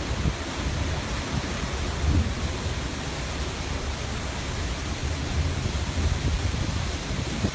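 Strong wind buffeting the microphone above rough sea: a steady rushing noise with uneven low rumbles from the gusts.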